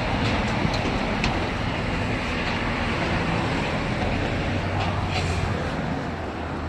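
Steady road-traffic noise with a low hum and a few light clicks.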